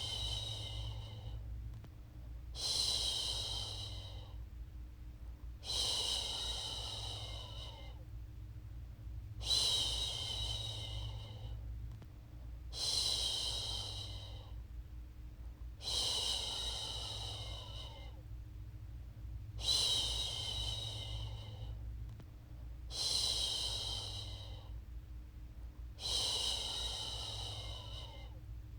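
A woman shushing a baby to sleep, a long "shhh" that starts sharply and fades away, repeated about every three seconds. A steady low rumble runs underneath.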